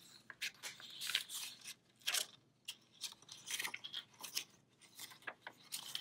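Paper rustling and crinkling as sheets are handled and pressed into a fold, with a glue stick rubbed across the paper in short, irregular scratchy strokes.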